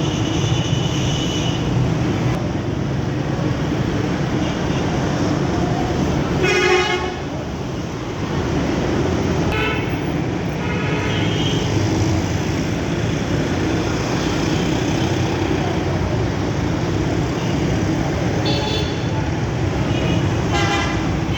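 Bus horn sounding in several short blasts, the loudest about six and a half seconds in, over a steady rumble of engine and traffic.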